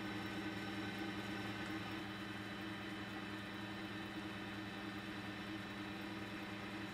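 Steady low electrical hum with a few held tones and a faint hiss, unchanging throughout, like a running motor or workshop machine.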